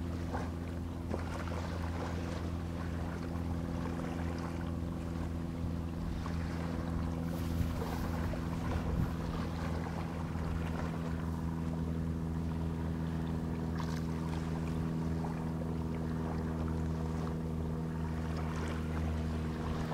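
Boat engine running at a steady, unchanging pitch over a haze of water and wind noise, with a few faint knocks.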